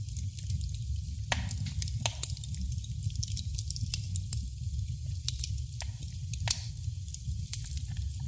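Wood fire crackling in a fireplace: irregular sharp pops and snaps over a steady low rumble, with a few louder pops scattered through.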